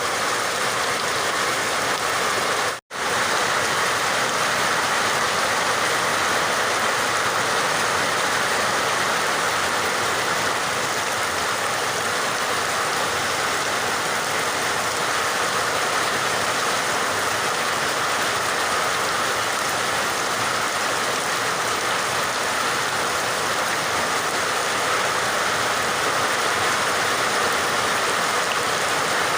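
Steady rain: an even, continuous hiss of falling water. The sound cuts out completely for a split second about three seconds in.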